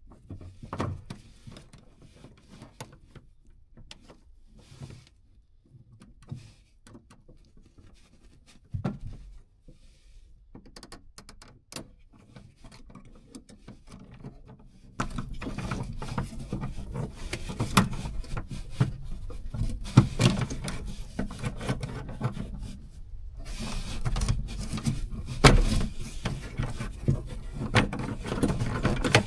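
Small clicks, taps and rubbing from hand and screwdriver work inside a car door, prying the exterior handle's connecting rods off the latch. Sparse and quiet at first, then from about halfway a louder, busier run of clicks and knocks.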